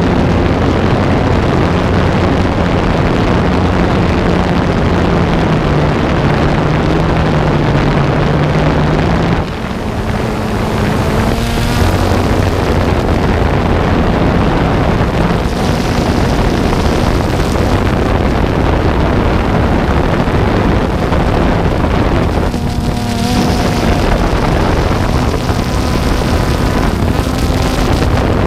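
Motors and propellers of a camera-carrying drone running steadily, heard from its onboard camera, with wind buffeting the microphone. Twice, about ten seconds in and again around twenty-three seconds, the sound briefly dips and the motor pitch climbs back up as the throttle changes.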